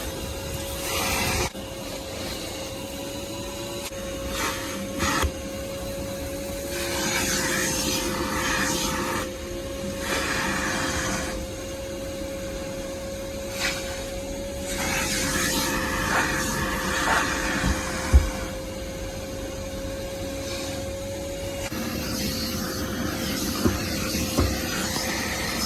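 Armor All AA255 2.5-gallon wet/dry shop vacuum running, its motor giving a steady whine under a rush of air that swells and fades as it is used. There are a few short clicks and knocks, and the whine settles a little lower near the end.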